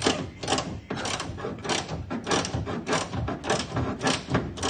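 Socket ratchet wrench clicking in steady strokes, about three a second, as a bumper mounting nut is undone.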